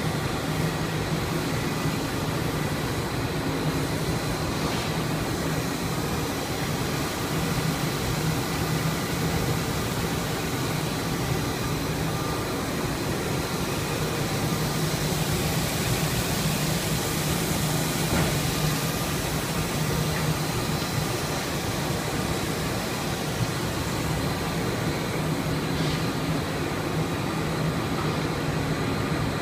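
Textile ram (tenter frame) line running: a steady industrial machine drone with a low hum and a faint high whine, unchanging throughout.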